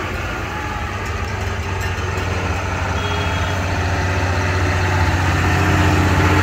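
Diesel engine of a large farm tractor running steadily as it drives past, with a low drone that grows louder as it comes closest near the end.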